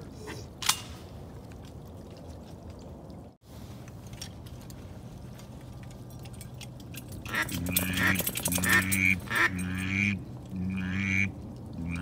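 A single sharp click under a second in, then from about seven seconds in a run of about six loud mallard-style quacks, each about half a second long.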